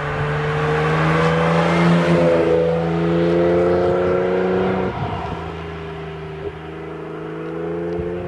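Jaguar car accelerating past, its engine note rising through a gear, loudest about two seconds in as it goes by. About five seconds in there is a brief break as it shifts up, and the engine rises again as the car pulls away.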